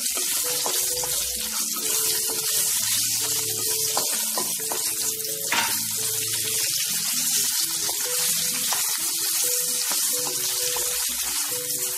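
Dry red chillies and green chillies frying in hot oil with tempering seeds in a kadai: a steady, even sizzling hiss, with a wooden spatula stirring them and a few short scrapes.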